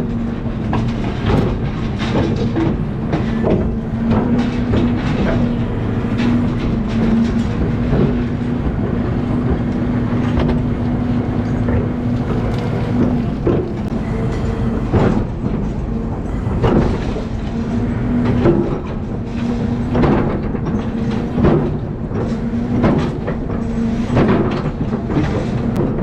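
Excavator working a soil slope: the diesel engine and hydraulics run with a steady hum that eases off about halfway and comes back, while the bucket knocks and clunks against the earth over and over.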